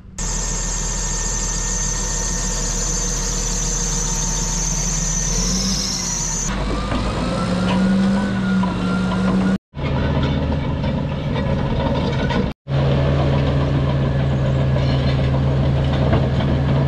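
Caterpillar D6T dozer's diesel engine running steadily, heard in several stretches of a few seconds each, broken by abrupt cuts. In one stretch the engine's pitch rises a little.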